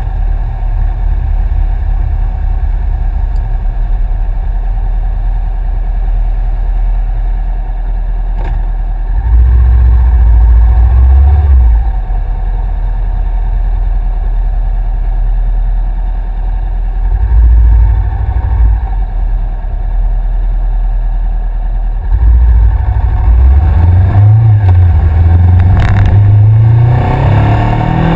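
2013 Honda CBR500R's parallel-twin engine running through a Two Brothers aftermarket exhaust, heard from the bike itself. It rises and falls with the throttle while slowing in traffic, then revs up repeatedly near the end as the bike accelerates through the gears.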